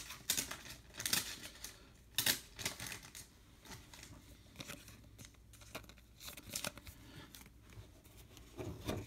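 Baseball cards being handled and a card slid into a thin plastic penny sleeve: short, scattered rustles and scrapes of card stock against plastic.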